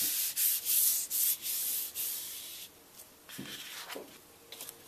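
Hand rubbing a sheet of paper over a gel printing plate to burnish the print, a quick run of back-and-forth hissing strokes that stops a little past halfway through. After that only a few faint paper sounds follow.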